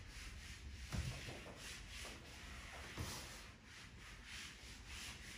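Faint, repeated rubbing strokes on a board, as in writing or wiping it, with a light knock about a second in and another about three seconds in.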